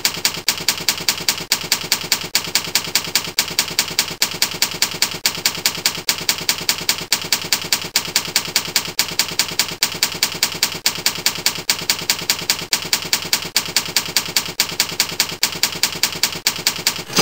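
Typewriter keys clacking in a steady run of strikes, about five a second: a typewriter sound effect laid under text that types itself onto the screen.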